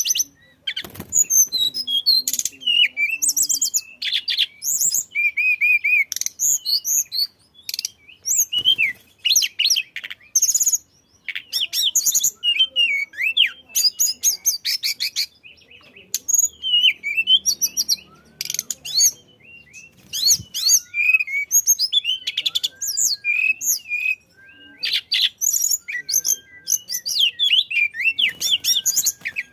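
Tledekan songbird singing in rapid, varied bursts of high chirps, trills and whistled notes, broken by brief pauses. Near the middle it adds a few lower, arched whistles.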